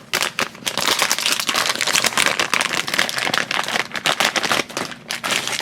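Plastic blind-bag packets crinkling and crackling as they are handled and opened, a dense run of crackles.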